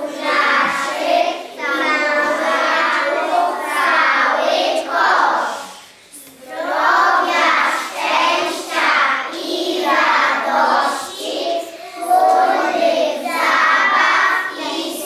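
A group of young children singing a song together, with a short break between phrases near the middle.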